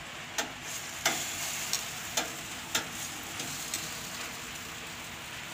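Freshly oven-roasted pork spareribs sizzling in their hot pan, a steady hiss with scattered sharp pops of spitting fat.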